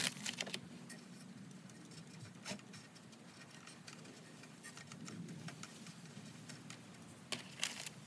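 Scattered light clicks and taps from hand tools and parts being handled, a few in quick succession at the start, one about two and a half seconds in and a couple near the end, over a faint low hum.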